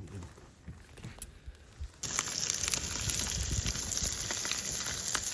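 Loud sizzling with dense crackling from cooking over a fire, starting abruptly about two seconds in, after a few quiet clicks.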